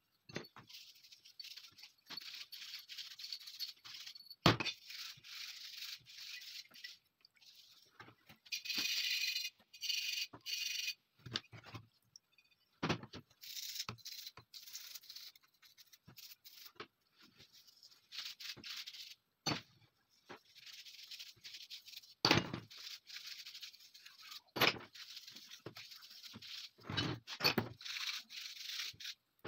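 Bristle brushes scrubbing the steel parts of a stripped TT pistol: a rasping scrub that comes in spells, loudest about a third of the way in, broken by a few sharp knocks as parts are handled.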